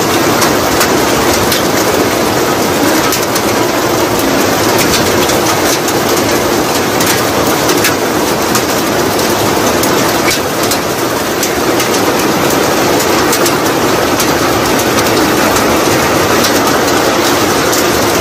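Heavy rain falling steadily, a dense hiss with many sharp ticks of drops striking close by.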